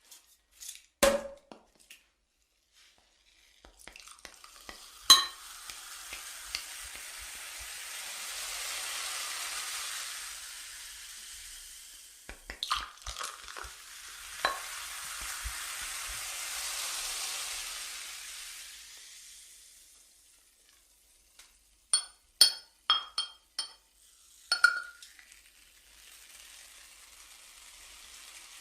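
A carbonated drink poured from a bottle into a glass: a few sharp clicks, then two long swells of pouring and fizzing hiss. About three-quarters of the way in come several ringing clinks of glass, and the fizzing picks up again after them.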